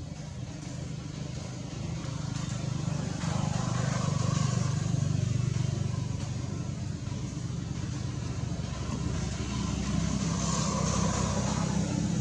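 Motor vehicle engine running with a steady low hum, growing louder about three seconds in and again near the end as traffic passes close by.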